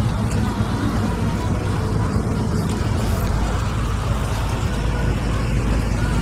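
Steady outdoor roadside noise: a low rumble of road traffic and wind on the microphone, with faint voices underneath. The low rumble grows a little heavier about halfway through.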